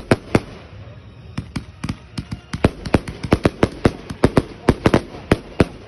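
Fireworks going off in a rapid string of sharp bangs: three at the start, a short lull, then a fast run of about four bangs a second.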